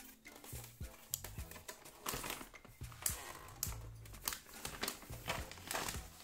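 Background music with a low bass line, over a run of clicks, knocks and crackles from a hard plastic Battleship game case being handled and its hinged lid swung open. The handling noises are busiest in the second half.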